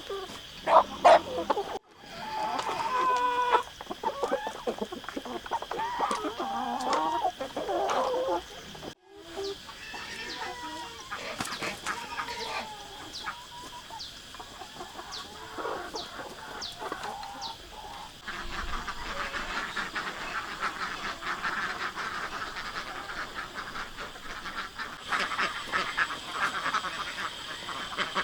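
Chickens clucking and calling. The sound cuts out briefly twice in the first ten seconds, and a denser chatter of poultry sound takes over from a little past the middle.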